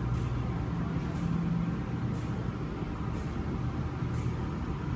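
Room tone: a steady low hum, with faint short ticks about once a second.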